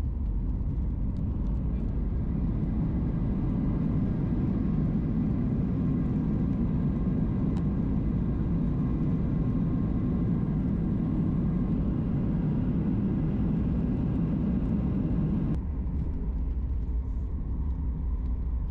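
Steady low cabin rumble of a Boeing 737 MAX 8 on the runway after landing. About three-quarters of the way through, the higher part of the noise drops off suddenly, leaving a quieter rumble.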